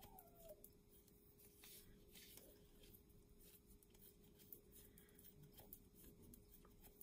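Near silence with faint scattered clicks and rustles of knitting needles and yarn being worked by hand, over a faint steady hum.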